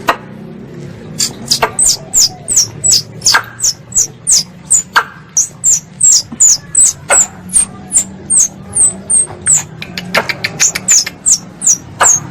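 Squirrel lure call used for hunting: a rapid series of short, high chirps that fall sharply in pitch, about three a second, starting about a second in, with a few harder clicks mixed in.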